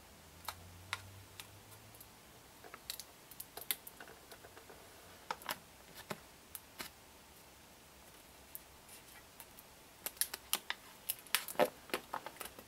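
Scattered sharp crackles and clicks of an adhesive stencil sheet and its backing being handled, peeled and pressed around an airsoft rifle's stock. They come thick and fast about ten seconds in.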